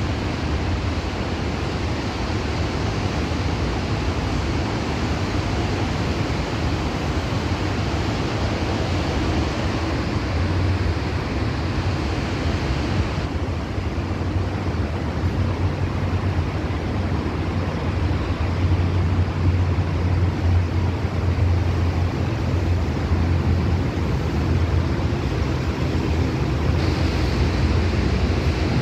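Steady low hum under an even rushing noise from a stationary test train idling while it waits at a signal. The hiss above the hum drops away about halfway through and returns near the end.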